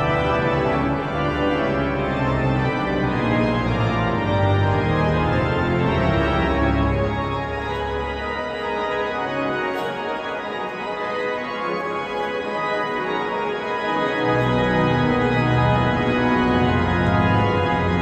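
Pipe organ of St. Stephen's Cathedral, Vienna, playing the recessional in full, sustained chords. The deep pedal bass drops out for several seconds in the middle, then comes back.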